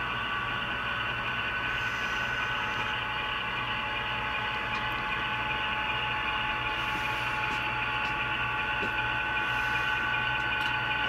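HO-scale model Amtrak passenger train running steadily along the layout track: a constant mechanical hum with a steady whine over it and a few faint ticks.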